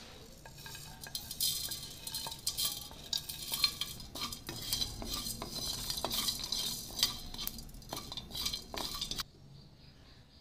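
Whole spices tipped into a dry kadai and stirred with a spatula for dry-roasting: a dense rattling and scraping of seeds against the pan. It stops abruptly about a second before the end.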